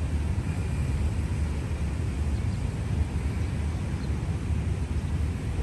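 Steady low rumble of outdoor city ambience, with no distinct events standing out.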